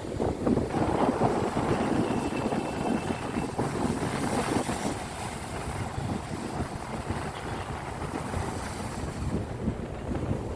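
Sea waves washing in, with wind buffeting the microphone.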